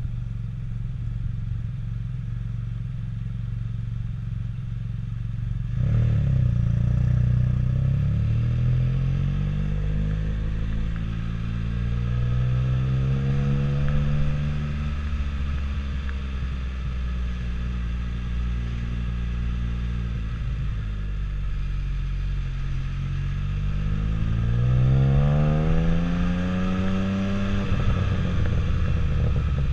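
Can-Am Spyder F3-S three-wheeled roadster's engine heard from the rider's seat. It runs low and steady, then about six seconds in the engine note jumps and climbs as it accelerates, settles into a steady cruise, and climbs again near the end before easing off.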